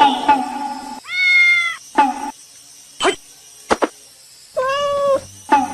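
Domestic cat meowing: two drawn-out meows about three seconds apart, with shorter mews and clicks between them.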